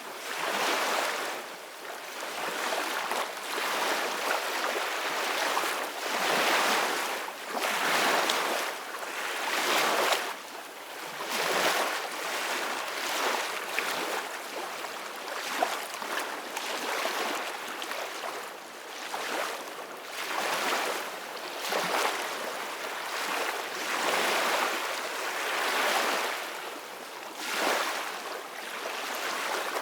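Soft ocean waves washing in, a steady hiss of surf that swells and falls back about every two seconds.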